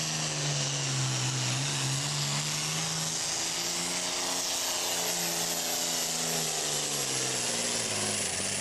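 Super farm class pulling tractor's turbocharged diesel engine running flat out under load as it drags the weight-transfer sled. The engine note dips about a second in, climbs again around three seconds, then slowly sags toward the end as the load builds.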